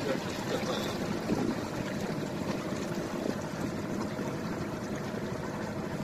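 Small motorboat running steadily across a reservoir, its motor and the water rushing past the hull making an even, continuous noise.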